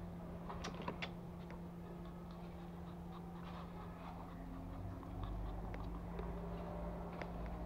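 Pomeranian puppy nosing and pawing at a floor-level camera: faint scattered ticks and scrapes over a steady low hum, with a low rumble as the camera is jostled about five seconds in.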